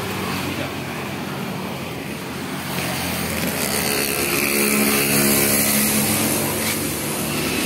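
A small motorcycle engine running steadily, swelling louder for a few seconds in the middle.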